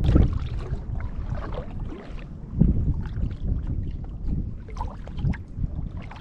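Wind rumbling on the microphone over water lapping and splashing against a kayak hull, with a few small knocks.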